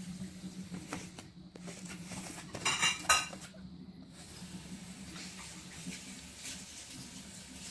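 A few light clinks and knocks of small hard objects being handled, the loudest a short ringing clatter about three seconds in, over a steady low hum.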